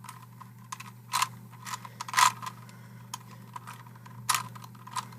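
Plastic Rubik's Cube being turned by hand during a solve: irregular clicks and clacks as the layers snap round, with louder snaps about a second in, near two seconds, and again past four seconds.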